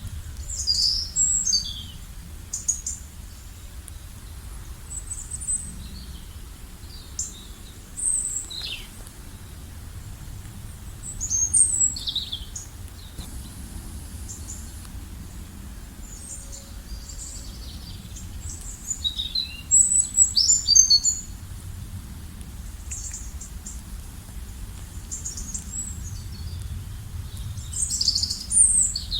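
Wild birds chirping and singing in short, high, quick calls, with louder bursts every few seconds, over a steady low background rumble.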